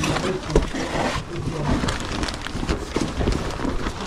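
Several people hurrying on foot through a stone tunnel: a steady run of footsteps, scuffs and rustling clothes and gear, with faint voices here and there.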